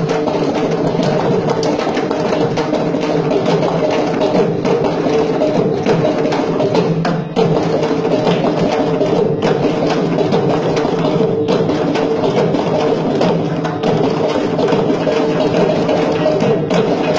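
Live South Indian percussion ensemble led by mridangam, playing fast, continuous strokes over a steady held pitch.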